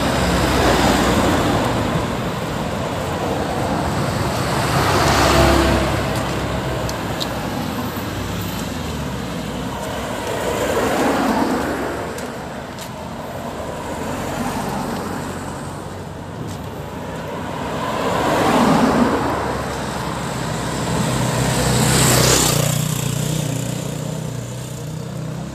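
Road traffic passing close by: cars and a box truck drive past one after another, about five separate swelling rushes of engine and tyre noise over a steady traffic hum.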